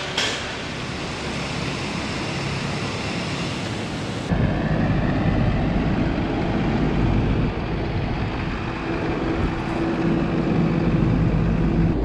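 A steady, even noise, then about four seconds in a louder low rumble with a steady hum: a medium-duty box truck's diesel engine idling, with wind on the microphone.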